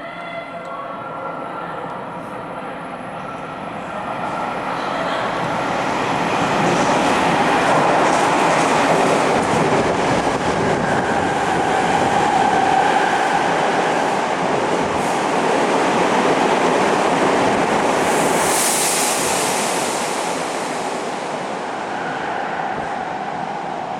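Tokyo Metro subway train running at speed without stopping. Its running noise swells over the first several seconds and then holds, with a brief high hiss about three-quarters of the way through.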